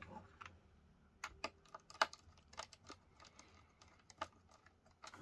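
Small precision screwdriver turning the tiny screw that holds an M.2 Wi-Fi card to a motherboard: faint, irregular light clicks and ticks as the bit works in the screw head.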